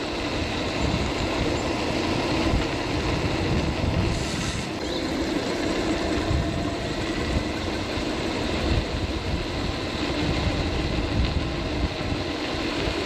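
Seated electric scooter with a 350 W hub motor and 14-inch pneumatic tyres being ridden: wind rumble on the microphone over a steady low hum from the motor and tyres.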